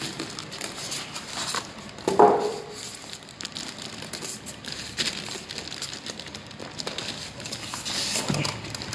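Plastic wrapping crinkling and polystyrene foam packing rubbing and clicking as a packed appliance is worked out of its foam insert by hand, with a brief squeak about two seconds in.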